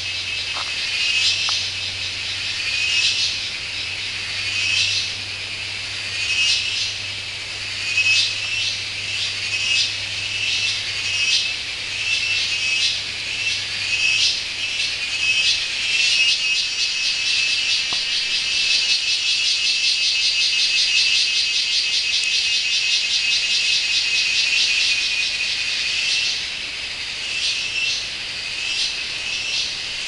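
A rainforest chorus of high-pitched, rhythmically pulsing calls, repeating about once a second, that merge into one continuous pulsing buzz for about ten seconds in the middle before breaking up again. A faint low hum runs underneath in the first half.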